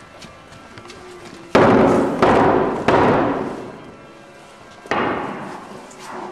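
Four loud, heavy thuds: three in quick succession starting about a second and a half in, then one more near the end, each followed by a long fading ring.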